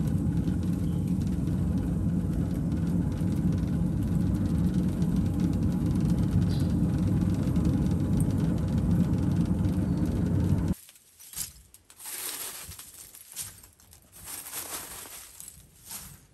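Hand-driven blower forcing air into a charcoal-fired clay smelting furnace: a steady low roar of blast and fire that stops abruptly about eleven seconds in. After that, lighter scattered crackles and clinks of charcoal being added to the furnace.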